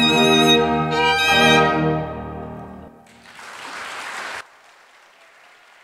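Solo violin with a string orchestra holding the final "Amen" chords, then the music fades out about three seconds in. A short burst of applause follows and cuts off suddenly, leaving faint hiss.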